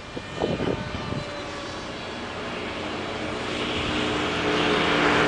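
Radio-controlled model F-22 jet in flight, its motor a steady whine of several held tones that grows louder as the plane comes closer.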